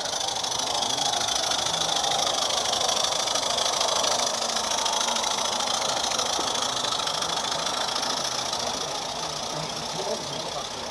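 Small 16mm-scale live-steam garden-railway locomotive running past with a rapid, hissing beat of steam exhaust, growing louder in the first few seconds and easing off toward the end as it draws away.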